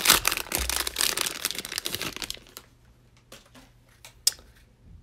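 Plastic cello wrapper of a trading-card pack crinkling and tearing as it is opened, for about two seconds. Then a few light ticks and one sharp tick as the card stack is handled.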